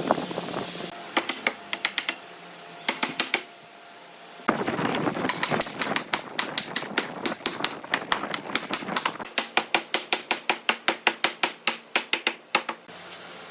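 A rapid series of sharp clicks, about four to five a second, in two runs with a short break near the middle, over a faint steady hum.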